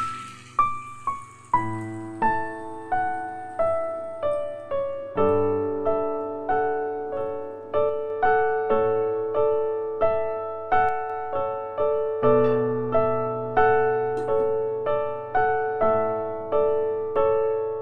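Background music: a piano-like keyboard playing a light melody of evenly paced single notes over a repeating low bass.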